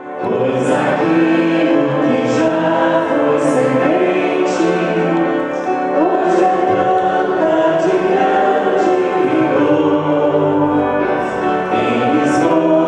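Church choir singing a hymn, many voices together.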